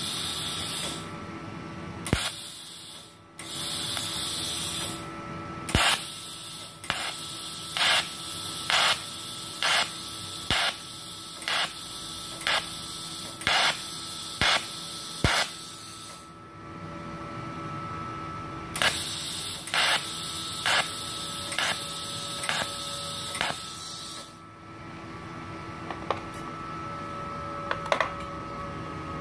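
Multipro TIG 200A-SA inverter TIG welder's arc hissing on stainless steel in four runs, the longest about ten seconds. Through the longer runs there is a regular pulse about once a second, with a faint steady whine from the machine underneath.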